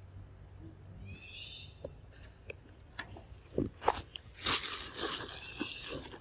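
Close crunchy clicks, knocks and scraping right at the microphone from a macaque at the camera, the loudest a burst of scraping about four and a half seconds in. A bird chirps once about a second in, over a steady high insect whine.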